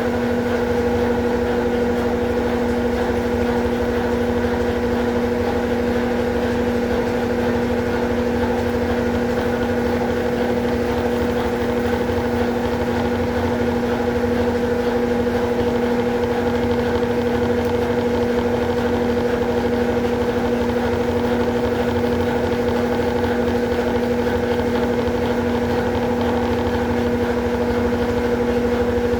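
Consul Facilite 11 kg top-loading washing machine running in its rinse cycle: a steady, unbroken machine hum with two clear tones.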